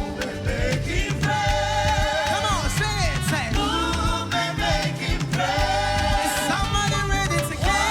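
Live gospel praise music: a band with bass and drums playing under singers holding long notes, sung in words the recogniser did not catch.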